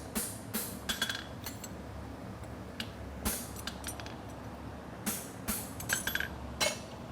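Light hammer taps on a steel horseshoe on an anvil, about a dozen strikes in irregular groups, some ringing briefly: hammer finishing to smooth the shoe's edges. A steady low hum from an evaporative cooling fan runs underneath.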